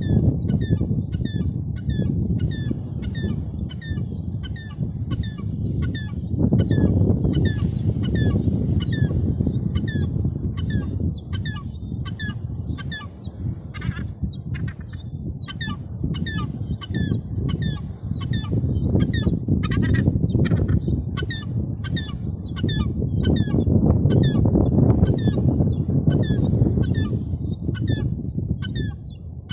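Gulls calling, a steady stream of short overlapping calls, a couple a second, over a loud steady low rushing noise.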